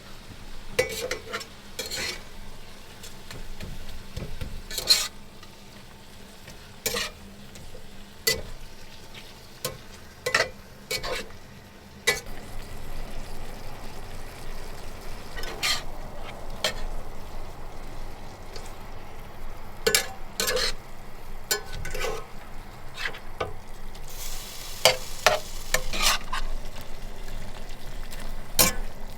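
A utensil scraping and clinking in a pan as noodles are stirred while they fry, with a steady sizzle that gets louder about halfway through.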